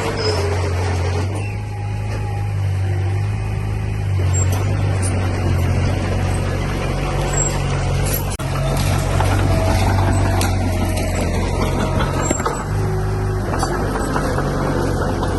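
Diesel engine of heavy earth-moving machinery running, its level rising and falling as it works, with scattered short metallic squeaks and clicks.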